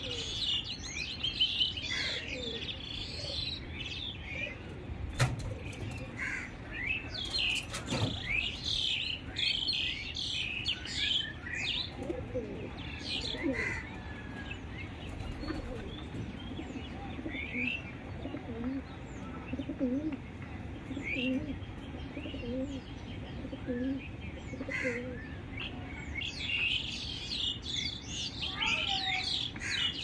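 Morning chorus of several wild birds: many short high chirps and tweets throughout, with a run of lower, repeated call notes through the middle. Two sharp clicks come in the first third.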